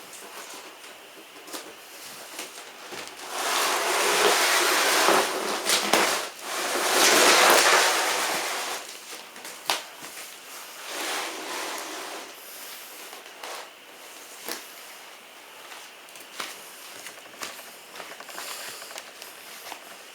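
A refrigerator being shifted off a homemade elevator platform onto the upper floor. There are two loud stretches of scraping and rustling noise of a couple of seconds each, starting about three seconds in, amid scattered knocks and clicks.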